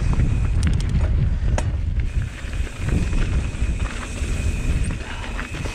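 Wind buffeting the microphone of a camera on a mountain bike rolling down a dirt trail: a steady low rumble, with a few sharp clicks of the bike rattling between about half a second and one and a half seconds in.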